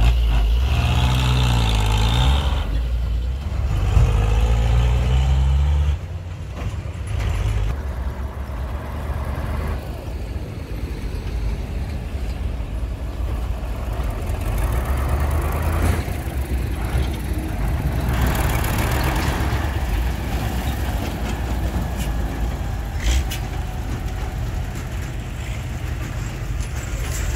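Heavy diesel truck engines. For the first six seconds one truck's engine is loud and close, its pitch dipping and rising as it pulls away. After that a steadier, quieter engine rumble comes from a loaded dump truck, with a brief sharp sound about 23 seconds in.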